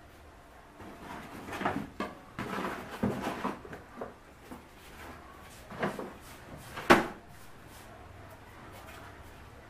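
A string of knocks, bumps and rustles as household items are handled and set down on a kitchen shelf, the loudest a single sharp knock about seven seconds in.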